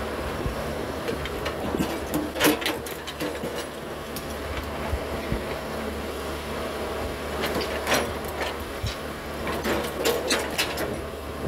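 Hitachi 110 hydraulic excavator's diesel engine running steadily under load as the bucket digs into soil, with scattered sharp clanks and knocks: a cluster about two and a half seconds in, another around eight seconds, and several more near the end.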